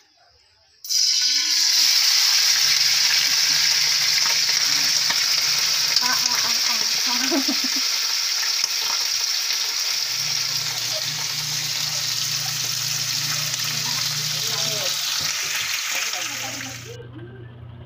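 Raw pork chunks frying in hot oil in a wok, with a loud, steady sizzle that starts abruptly as the meat goes in, about a second in, and drops away near the end.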